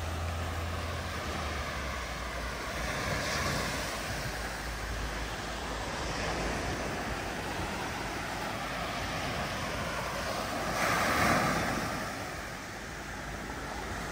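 Sea waves washing ashore, swelling louder twice, about three seconds in and again about eleven seconds in.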